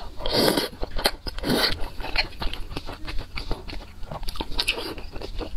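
Close-miked eating of soft food from a spicy stew: two loud, wet mouthfuls in the first two seconds, then chewing with many small wet mouth clicks.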